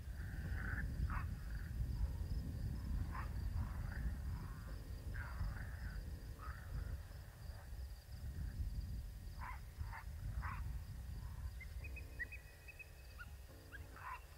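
Wind rumbling on the microphone, with short high chirps every second or two and a faint steady high-pitched whine.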